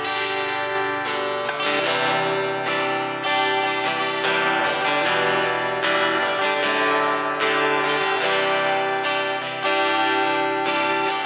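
SQOE Cranberries 41 acoustic-electric guitar strummed in repeated chords, heard through its pickup rather than a microphone.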